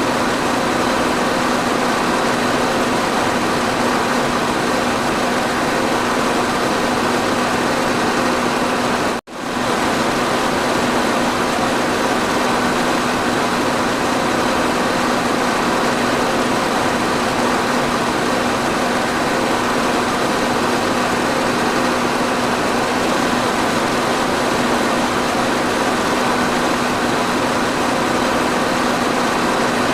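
Electric fan running steadily: an even whoosh of moving air with a constant low hum from the motor. The sound drops out for a split second about nine seconds in, then carries on unchanged.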